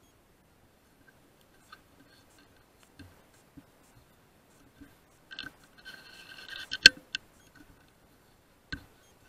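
Handling noises close to the microphone of a rifle-mounted night-vision scope: scattered faint clicks, then a short scratchy rustle that ends in one sharp, loud click, followed by a smaller click and a knock near the end.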